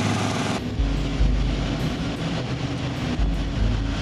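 Boat engine running steadily under way, a low drone heard on board. A higher hiss over it drops away about half a second in.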